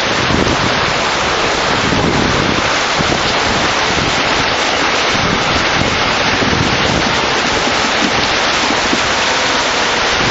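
Loud, steady rushing noise of wind buffeting the microphone, mixed with fast-flowing river water.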